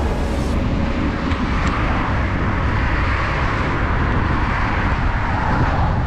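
Wind buffeting the microphone while riding a bicycle along a road, mixed with road traffic noise that swells in the middle and eases near the end.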